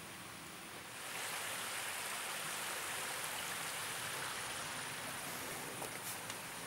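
Steady rushing of a small stream that comes in about a second in and holds evenly, with a few footsteps near the end.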